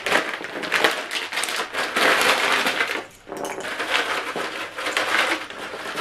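Biscuits being crushed by hand in their crinkly plastic packaging: a dense crunching and crinkling, with a brief pause about three seconds in.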